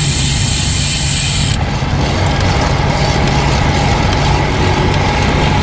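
Wind rushing over the camera microphone of a moving road bike on a gusty day, a loud steady rumble with a faint hum underneath. The hiss in the upper range drops away about a second and a half in.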